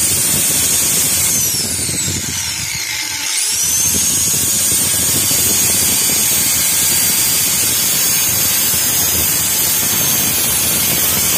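Black+Decker angle grinder motor running with a high whine. About a second and a half in, its pitch falls as the motor slows, then climbs quickly back to full speed and holds steady.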